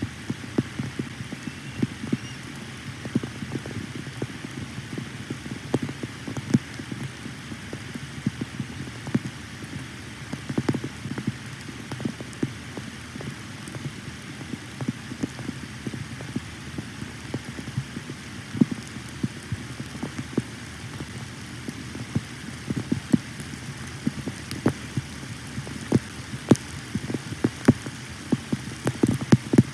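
Rain falling on the nest webcam: many irregular taps of drops hitting the camera and microphone, some louder than others, over a steady low background of rain.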